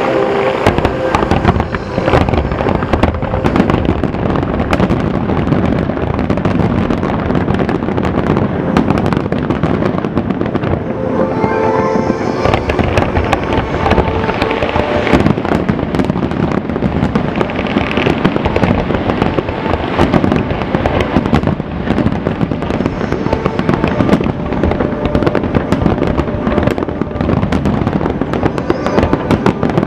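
Aerial fireworks display going off in a dense, continuous barrage of bangs and crackles with no let-up.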